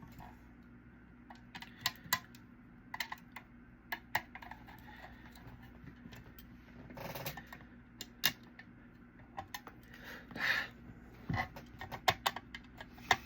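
Small screws and a screwdriver clicking and tapping irregularly against the case parts as tiny screws are picked up and fitted, with a couple of brief rustles.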